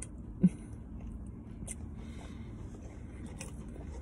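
A person chewing fried food quietly with soft mouth clicks over a low, steady hum. A short low thump about half a second in is the loudest sound.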